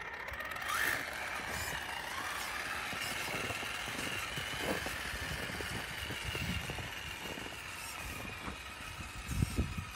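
Traxxas E-Revo RC truck's electric motor and drivetrain whining steadily as it drives forward, pushing snow with a plow blade, with a brief rising whine about a second in. A few dull thumps near the end.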